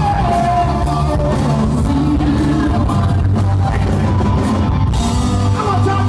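Live rock band playing: drum kit, electric guitar, keyboard and bass, with a singing voice over them.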